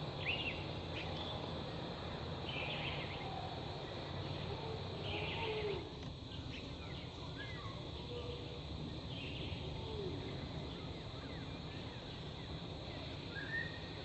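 Birds in the surroundings giving short, scattered chirps and brief whistled calls over a steady low rumble of background noise.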